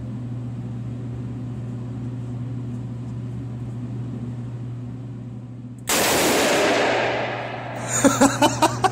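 A single shot from a small .357 Magnum revolver about six seconds in: a sudden, very loud crack with a long echoing tail, over a steady low hum. Near the end come several quick, short sharp sounds.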